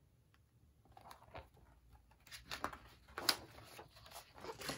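Pages of a picture book being turned and handled: soft paper rustles and light taps, loudest about three seconds in and again near the end.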